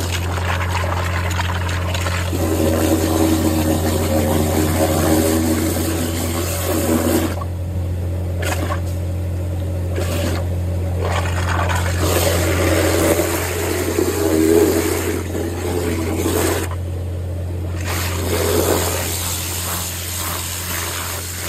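Pressure washer jet blasting into wet mud and gravel, a steady rushing spray over a low, even hum. The spray cuts off briefly three or four times, about a third of the way in, around halfway and again near the end.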